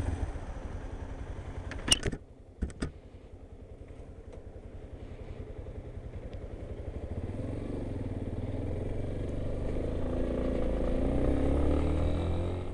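Yamaha XTZ 250 Ténéré's single-cylinder engine running with a steady pulse, with two sharp clacks about two seconds in. After that the engine note builds steadily louder as the bike pulls away and gathers speed.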